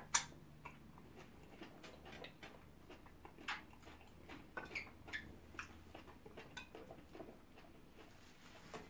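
Quiet eating sounds of people chewing food and licking their fingers: scattered small wet clicks and smacks, a few every second, with one louder click right at the start.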